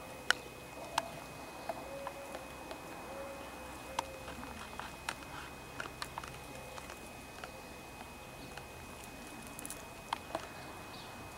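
Collared peccary's hooves and snout on loose stones and gravel as it roots and walks: sharp, irregular clicks and knocks of stone on stone, a few louder ones near the start.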